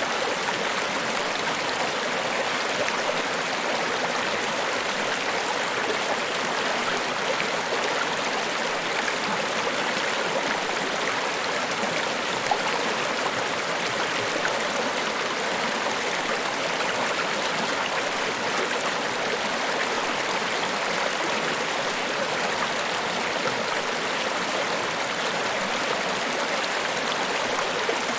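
Niagara Falls: steady, unbroken rush of falling water, with little deep rumble.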